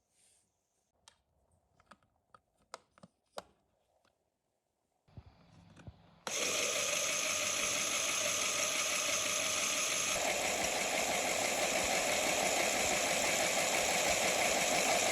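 A few light plastic clicks of LEGO Technic parts being handled. About six seconds in, a motor-driven LEGO Technic crankshaft mechanism starts up at once and runs with a loud, steady, rapid mechanical clatter, its tone shifting slightly around ten seconds in.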